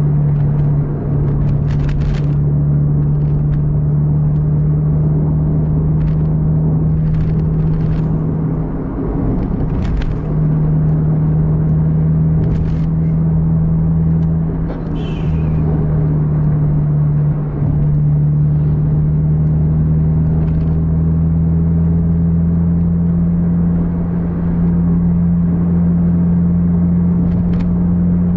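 Car engine and tyres at highway speed, heard from inside the cabin: a loud, steady drone with a low hum. A few brief knocks or clicks sound over it.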